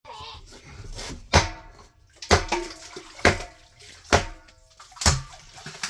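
Heavy hammer blows on concrete, about one a second, each a sharp strike followed by a brief ring.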